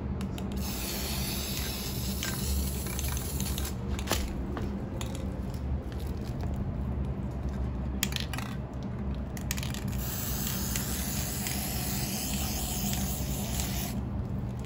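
Trigger-nozzle aerosol can of Rust-Oleum Universal metallic spray paint hissing as it sprays in long bursts. There are short breaks about four and eight seconds in, and the spraying stops near the end.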